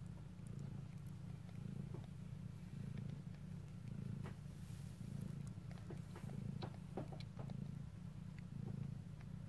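Mother cat purring steadily while nursing her newborn kittens, the low purr swelling and easing in an even rhythm about once a second, with faint small clicks over it.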